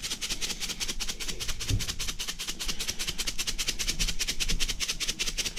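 Sea salt rattling in a shaker canister as it is shaken quickly and steadily over a raw brisket, the grains scattering onto the meat.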